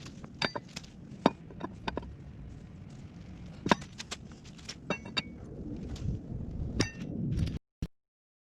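Metal hand tools clinking and knocking while an ATV wheel is being taken off: a run of irregular sharp clinks, some with a short ringing tone. The sound cuts off suddenly near the end.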